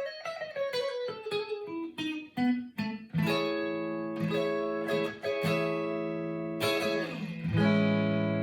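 Clean Fender Stratocaster electric guitar through a Fender Pro Reverb amp, played through the Signal Cheyne B6K OTA compressor pedal set lightly. It plays a descending run of single picked notes, then chords strummed about once a second and left ringing with long sustain.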